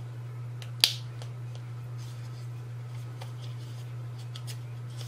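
A lip gloss tube handled and opened: one sharp click about a second in, then faint small clicks of handling, over a steady low hum.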